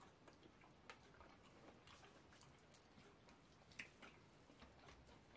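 Near silence with faint, scattered wet ticks and clicks of eating by hand: fingers working fufu and slimy okra soup, and chewing. Two sharper clicks stand out, about a second in and just before four seconds.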